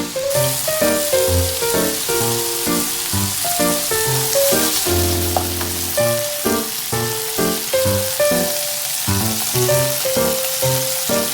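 Food sizzling as it fries in a pan, a steady hiss, under a mellow background melody of plucked and keyed notes.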